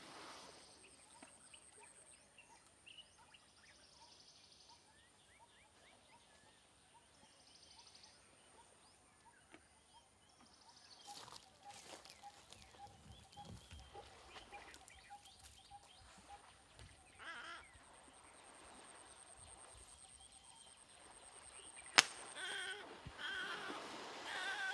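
Lakeside wildlife ambience: birds chirping and calling on and off over a steady high insect buzz, with a run of evenly repeated call notes midway. Near the end comes a single sharp crack, followed by louder bird calls and water splashing as an Asian elephant charges through the shallows.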